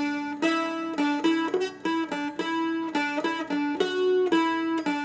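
Seagull Merlin, a four-string diatonic dulcimer-style instrument, flatpicked in a fast single-note lead melody: quick repeated notes and short runs, about four to five picked notes a second, each ringing briefly.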